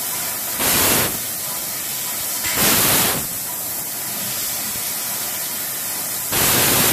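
Laser tube cutting machine cutting holes in a steel tube: a steady hiss of the cutting gas and spark spray. Three short, louder hissing blasts come about half a second, two and a half seconds and six seconds in.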